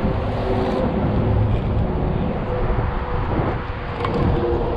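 An engine running steadily: a constant mechanical hum with a couple of steady tones in it.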